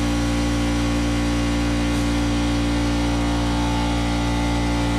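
An engine running steadily at an unchanging speed, with an even hum.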